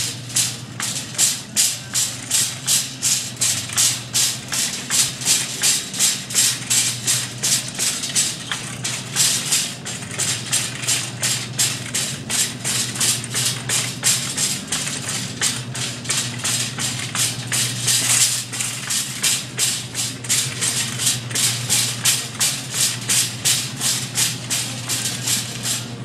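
Rhythmic swishing and rustling at walking pace, about two strokes a second, from the handheld phone being carried while walking, over a steady low hum.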